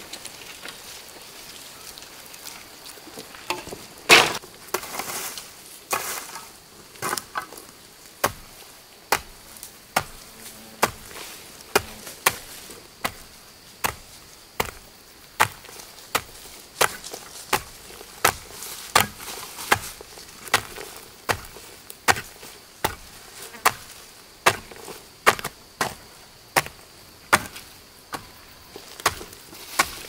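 A hoe chopping into dry earth in steady strokes, about one every three-quarters of a second, after a few irregular clatters of dry branches early on. Insects buzz steadily behind it.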